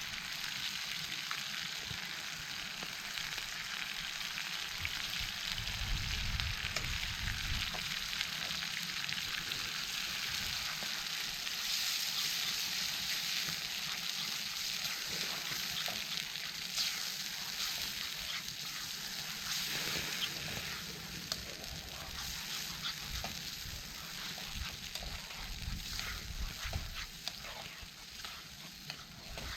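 Food frying in a pan over a campfire: a steady sizzle with many small crackles and pops.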